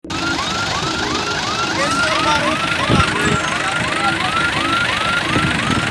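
A siren-like electronic whoop repeating about three times a second, each sweep rising and then falling in pitch, over low repeated tones and a few dull thumps.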